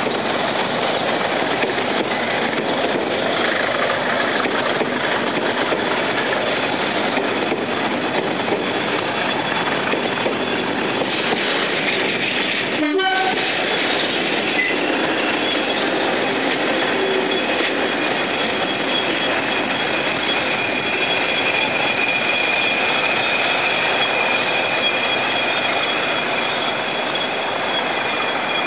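Delivery train of London Underground S Stock cars, hauled by Class 20 diesel locomotives, passing close at low speed: loud, steady wheel-on-rail running noise. A high steady tone comes in about two-thirds of the way through as the tail of the train goes by.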